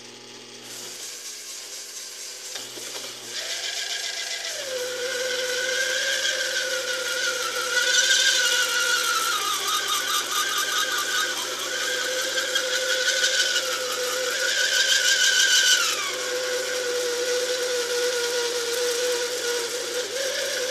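Taig lathe turning slowly while a spring parting-off tool cuts into a steel bar: a steady whine that sags and recovers in pitch as the cut loads the lathe. It grows louder about a third of the way in, and a harsher scraping hiss joins it through the middle.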